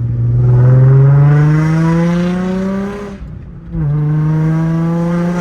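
Nissan 350Z's 3.5-litre V6 accelerating hard. The engine note climbs steadily for about three seconds, drops with an upshift, and climbs again in the next gear.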